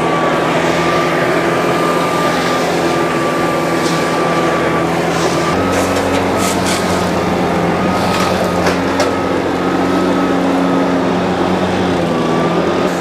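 An engine running steadily, its pitch stepping to a new level about five and a half seconds in, with a few brief rattles or scrapes between about six and nine seconds in.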